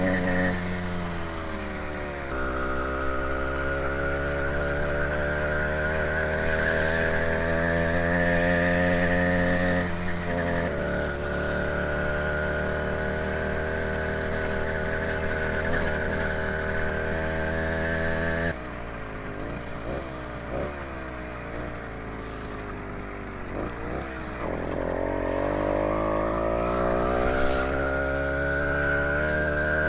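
Four-stroke 80cc motorized-bicycle engine running under load while riding, its pitch climbing as it speeds up and holding steady. About 18 seconds in the pitch drops sharply as the throttle comes off, wavers low for a few seconds, then rises again near the end.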